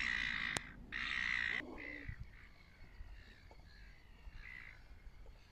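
A bird giving two harsh, drawn-out calls back to back near the start, then fainter calls of the same kind.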